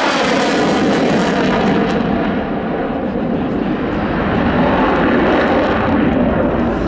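F-16 fighter jet's engine with the afterburner lit during an aerobatic manoeuvre: continuous jet noise that eases slightly for a moment, then swells again.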